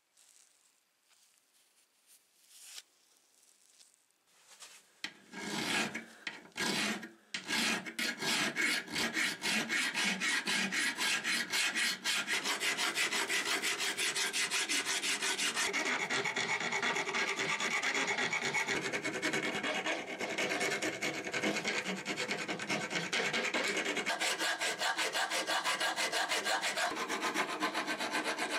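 Flat hand file rasping over the rusted steel of old Unior pincers clamped in a bench vise, in rapid, steady back-and-forth strokes. It starts about seven seconds in, after a few faint handling knocks.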